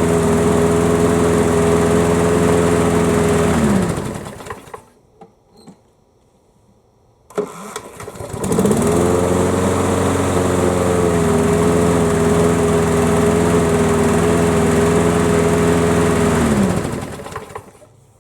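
Craftsman key-start mower engine running steadily, then shut off about four seconds in, its pitch sinking as it winds down. After a few seconds of quiet it is started again with the key, fires right up within about a second and runs steadily, then is shut off and winds down near the end. The quick starts mean the fuel fault, a blocked carburetor jet, has been cured.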